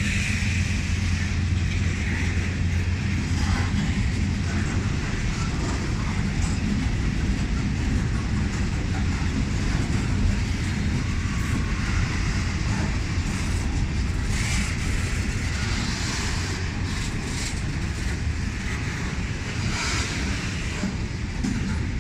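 Diesel freight train running past with a steady low rumble of locomotive engine and rolling cars. A low engine hum drops away after about four seconds, and a few brief higher clanks or squeals break through later.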